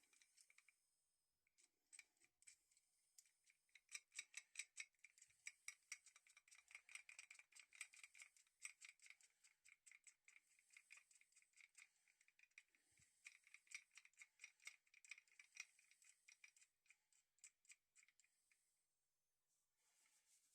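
The thumb wheel of an antique Budding worm-drive adjustable wrench being spun by finger, its worm working the sliding jaw with a fast, faint run of small metal clicks and ticks that rises and thins out at times.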